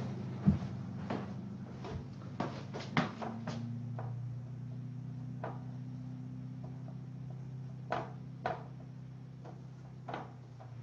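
A pen working on paper on a desk: a scattering of short taps and scratchy clicks, thickest a couple of seconds in, over a steady low hum.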